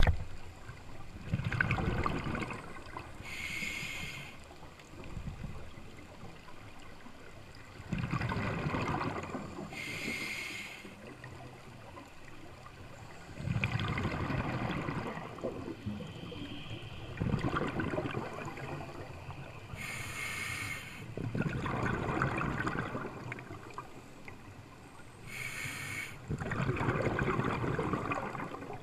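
Scuba diver breathing through a regulator underwater: short hissing inhales, each followed by a longer rush and rumble of exhaled bubbles, about six breaths in all, coming every four to six seconds.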